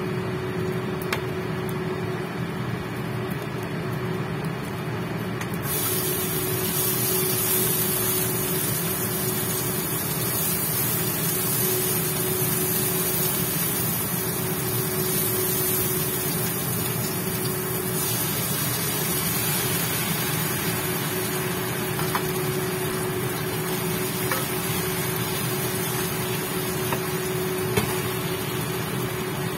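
Sliced onion sizzling in hot oil in a wok, stirred with chopsticks. The sizzle starts suddenly about six seconds in and holds steady over the induction hob's constant fan hum, with a few light clicks of the chopsticks against the pan.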